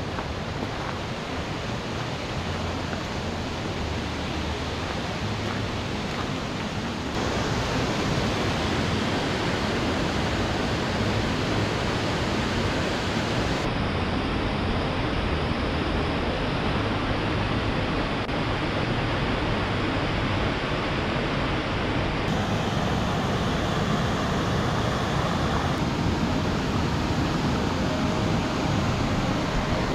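Steady rushing of a small waterfall and the river water below it. Its tone shifts abruptly about a quarter, half and three-quarters of the way through.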